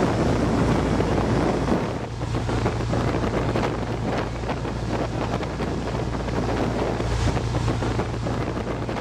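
Riva Iseo sportsboat running fast across open water: a steady low engine drone under the rush of wind and spray, with wind buffeting the microphone.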